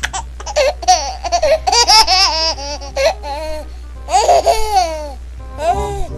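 High-pitched laughter sound effect, a laugh track dropped in after a joke's punchline, in runs of quick ha-ha pulses with breaks between them; it stops just before the end.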